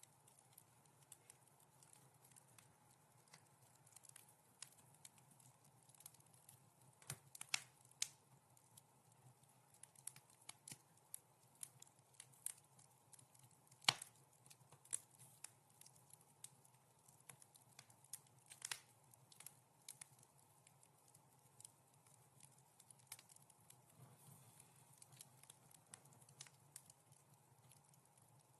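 Wood fire crackling softly: irregular sharp pops and snaps over a faint steady background noise, the loudest pop about halfway through.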